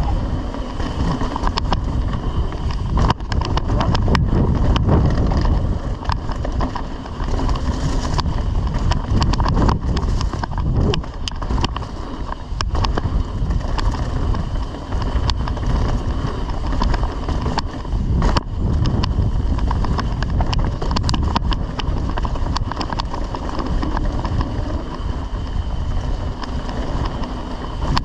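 Mountain bike riding fast down a dirt forest trail: tyres rolling over dirt and roots, with the bike knocking and rattling over bumps many times, and wind rushing over the camera microphone.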